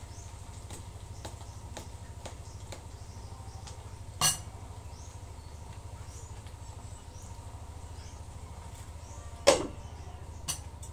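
Sharp metal clinks of a stainless steel pan lid against the pan: one about four seconds in and two close together near the end, the first of the pair the loudest. A steady low hum and faint scattered ticks sit underneath.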